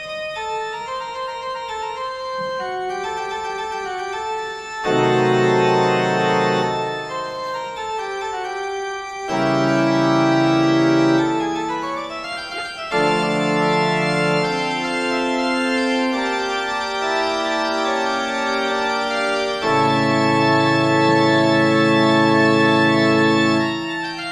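Organ music: slow sustained chords with a moving upper line. It swells louder four times as deep bass notes come in, about five, nine, thirteen and twenty seconds in.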